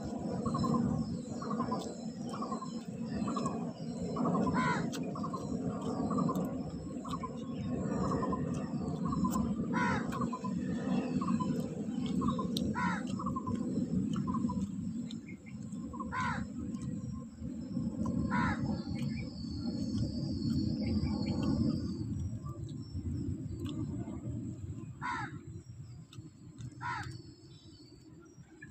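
Crows cawing outdoors, at first in quick succession about twice a second, later single caws a few seconds apart, with a small bird twittering briefly about two-thirds of the way through. A steady low rumble runs underneath.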